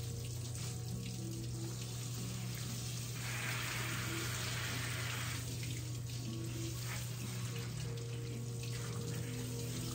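Water spraying from a hand-held hose sprayer onto a wet puppy's coat, a steady hiss that grows louder for a couple of seconds around the middle, with soft background music underneath.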